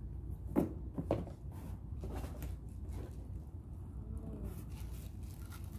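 Handling noise from unpacking: two sharp knocks about half a second and a second in, then lighter clicks and rustles as items are moved about, over a low steady hum.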